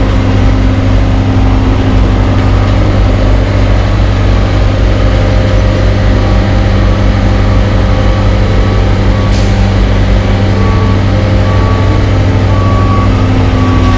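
Diesel engines of a CAT AP655F asphalt paver and a CAT CB-335E tandem roller running steadily at close range, a loud, deep hum. There is a short hiss about nine seconds in, and faint evenly spaced beeping near the end.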